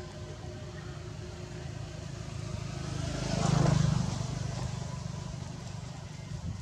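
A motor vehicle passing by: its sound swells to a peak a little past the middle and then fades, over a steady low engine hum.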